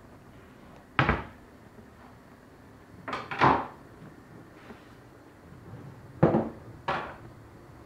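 Kitchen cupboard door knocking as it is shut, followed by more wooden knocks and clacks of cupboard and kitchen things: one about a second in, a quick cluster around three seconds, and two more near the end.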